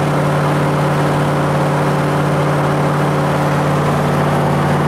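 Car engine and road noise heard from inside the cabin while cruising at a steady speed: an even, unchanging low drone.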